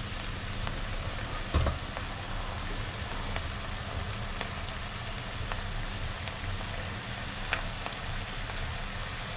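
Chicken pieces sautéing in oil in a glass pot on a gas burner: a steady frying sizzle with scattered small pops. A single dull knock sounds about a second and a half in.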